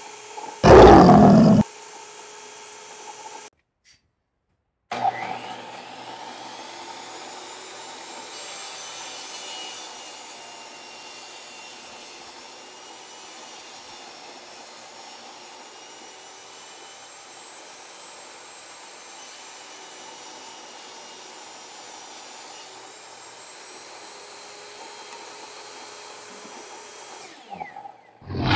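Jobsite table saw running steadily during a rip cut with a push stick, its motor giving a steady whine. A short loud burst comes about a second in. After a moment of silence the motor's pitch rises as it spins up about five seconds in, then holds steady.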